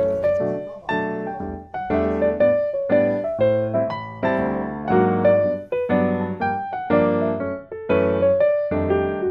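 Background music: a gentle melody on piano or electric piano, with notes struck about once or twice a second and a steady bass line.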